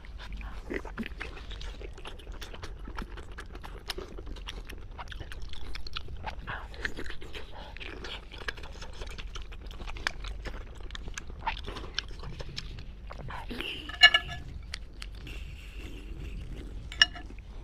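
A person chewing and biting spicy pork: a steady run of wet, crackling mouth sounds and small crunches. Two short, louder, sharp sounds stand out about fourteen and seventeen seconds in, the first with a brief ringing pitch.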